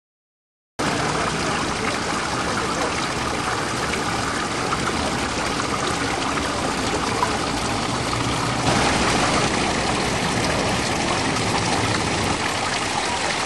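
Fountain water pouring and splashing steadily from a bronze spout. It starts abruptly about a second in and grows a little brighter and louder about two-thirds of the way through.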